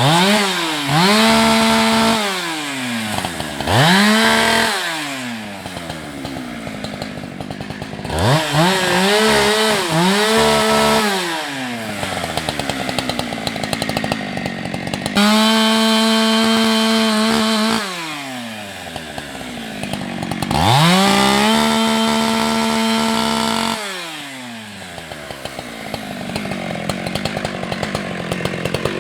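Husqvarna 365 two-stroke chainsaw revved to full throttle and let back down to idle about five times, with the pitch wavering in some of the runs, as it cuts into a tree.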